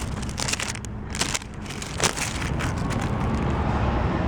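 Packaging crinkling and crackling as it is handled, in a few short bursts in the first two seconds. A passing car's steady low rumble builds through the second half.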